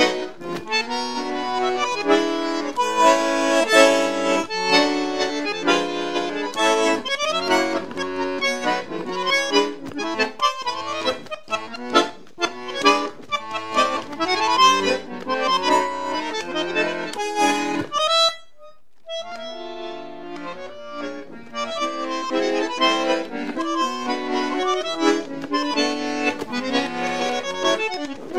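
Solo bandoneon playing a tango, with full sustained chords and quick runs of notes. About two-thirds of the way through it drops to a few soft high notes for about a second, then picks up again.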